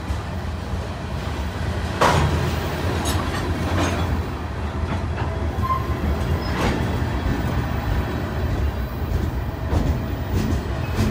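CN freight train's hopper cars and boxcars rolling past, a steady rumble of wheels on rail with occasional sharp clanks, the loudest about two seconds in.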